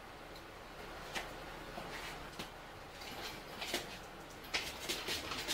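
Faint, scattered metal clinks and knocks as a Chevrolet small-block engine is hoisted out of a car's engine bay on a shop crane. The knocks come irregularly and bunch up in the last couple of seconds.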